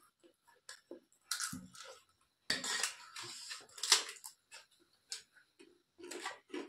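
A spoon scraping and clinking on a metal plate of rice, with chewing and the crunch of crisp papad. The clinks and scrapes are busiest a little over halfway through, ending in one sharp click.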